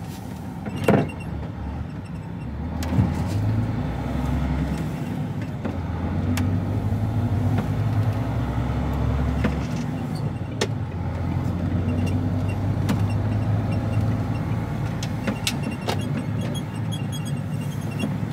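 HGV lorry's engine and cab noise heard from inside the cab, a low steady drone that gets louder as the truck pulls away about three seconds in. Several sharp knocks come from something loose banging around overhead in the cab, the loudest about a second in.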